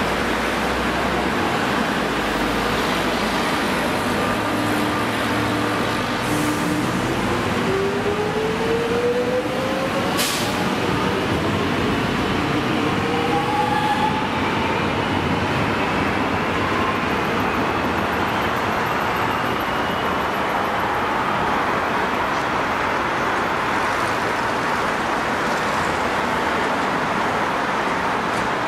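Metro X'trapolis electric train accelerating at the platform. Its traction motors give a whine that rises steadily in pitch from about a fifth of the way in to past the middle, over a steady rolling rumble, with a short sharp hiss near the middle.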